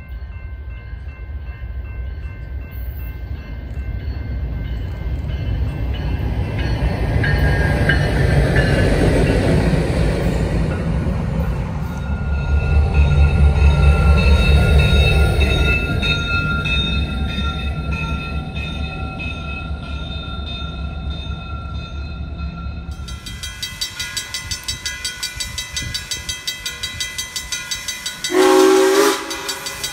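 A diesel locomotive running light approaches and passes, its engine rumble building to its loudest about halfway through, with steady high tones over it. After a cut, Frisco 1630, a 2-8-0 steam locomotive, works with a rhythmic beat about two or three times a second. Near the end it gives a short blast on its steam whistle.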